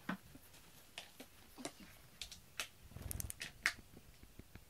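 Faint, scattered soft clicks and rustles from a hand petting a cat's fur, with a brief low rumble about three seconds in.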